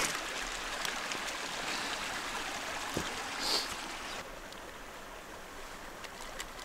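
Steady rush of running water from a small stream. It drops in level about four seconds in, with a single light knock a little before that.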